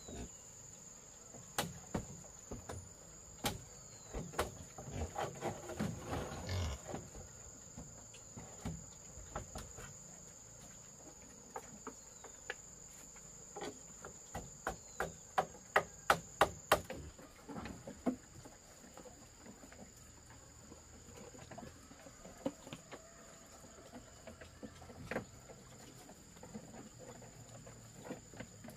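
Steady high trill of insects such as crickets, under scattered knocks and taps. About halfway there is a quick run of some ten knocks, roughly four a second, which are the loudest sounds.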